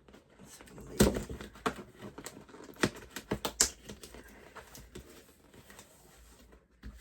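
Toy packaging being pulled and pried at by hand: irregular sharp clicks and crackles, the loudest about a second in.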